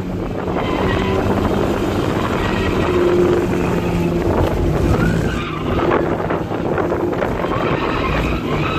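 Honda S2000's F22C four-cylinder engine, with aftermarket intake and header, running under throttle at speed, heard from inside the cabin. The engine note holds steady, then dips briefly about five and a half seconds in before picking up again.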